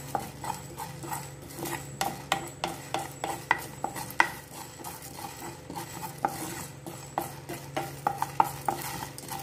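A spatula stirring whole spices (coriander seeds, peppercorns, cumin, cardamom, cinnamon and cloves) roasting in a nonstick frying pan: irregular scraping strokes with the seeds rattling across the pan, roughly two a second.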